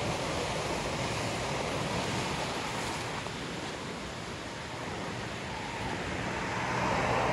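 Steady rush of fast-flowing water from a small stream tumbling in white water.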